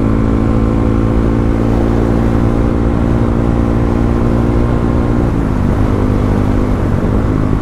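Motorcycle engine running at a steady pitch under way; about five seconds in its note drops and wavers before settling lower.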